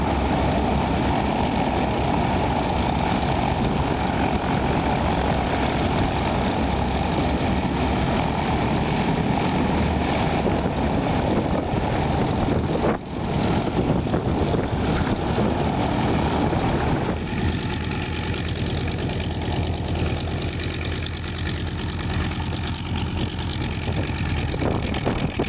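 Piston engines of propeller-driven light aircraft taxiing, a steady engine drone. The sound breaks briefly about halfway through and becomes a little quieter in the middle range a few seconds later.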